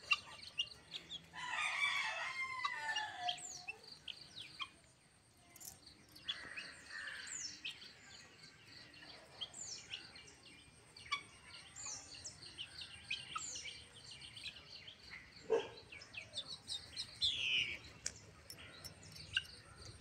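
Poultry calling: one long, crow-like call of about two seconds about a second in, then a shorter call, followed by scattered short, high chirps.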